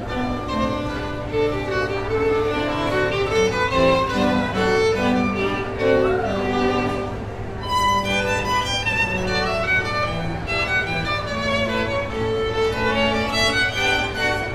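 Classical string music: a violin carries a flowing melody over lower strings, with a steady low rumble underneath.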